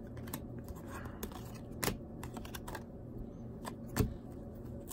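1994 Donruss Triple Play baseball cards being flipped through by hand, one card at a time, giving irregular light clicks and snaps as each card slides off the stack. Two snaps stand out as louder, about two seconds in and about four seconds in.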